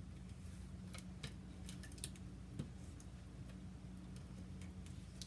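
Tape runner laying adhesive on the back of a paper circle: faint, scattered clicks and ticks, over a steady low electrical hum.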